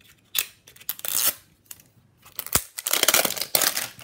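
Printed sticker wrapper being peeled and torn off a plastic L.O.L. Surprise ball in short ripping strokes, with a sharp click about two and a half seconds in and a longer stretch of tearing near the end.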